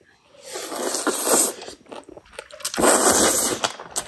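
Close-miked chewing of a mouthful of raw trout sashimi wrapped in fermented green onion kimchi, with crunching in two bursts about a second long, one near the start and one near the end.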